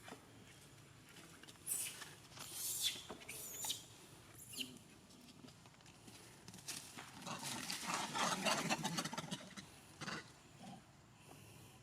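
Monkeys at close range: a few short noisy bursts a couple of seconds in, then a longer stretch of rapid scuffling and crackling in the second half.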